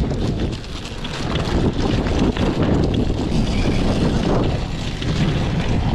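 Wind buffeting the microphone over a running enduro motorcycle engine.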